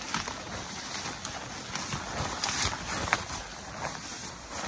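Footsteps of a hiker with a backpack walking a forest trail through fallen branches, with scattered snaps and rustles of brush and twigs underfoot.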